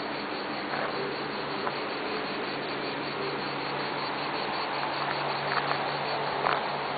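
Steady, dense insect buzzing, like a chorus of summer insects, with a steady low hum underneath and a few faint ticks.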